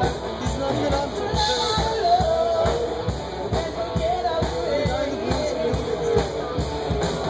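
Live rock band playing: a steady drum beat under a singer and electric guitar.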